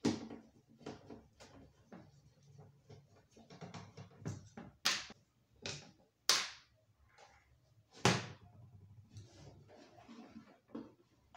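Screwdriver and hands working the back amplifier panel of a wooden subwoofer cabinet loose: scattered clicks, scrapes and light knocks, with a few sharper knocks about five, six and eight seconds in as the panel is worked free and pulled out.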